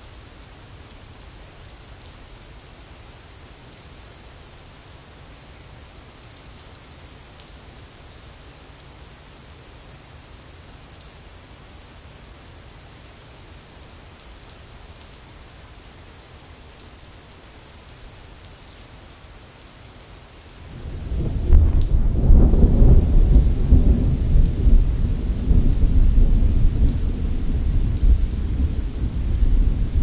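Steady hiss of rainfall. About two-thirds of the way through, a loud, low rumble of thunder swells up suddenly and keeps rolling over the rain.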